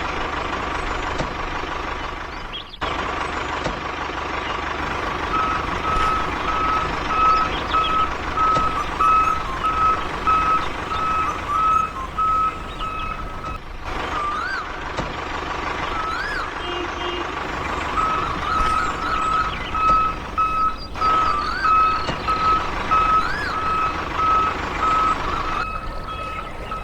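Vehicle reversing alarm beeping at about two beeps a second over steady machine noise; the beeping stops partway through and starts again. A few short chirps are heard between the runs of beeps.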